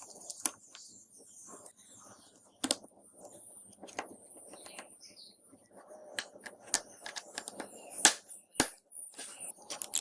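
Small sharp clicks and taps of hand tools handling phone parts, irregular and spaced apart, the loudest in the second half, over faint rustling.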